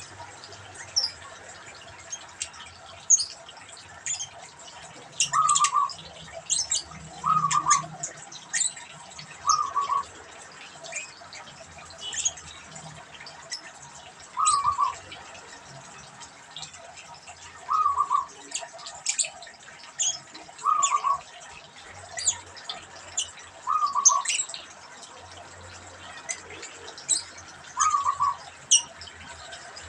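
Zebra dove (perkutut) cooing: short stuttering coos repeated every two to three seconds, with high, brief chirps of other small birds in between.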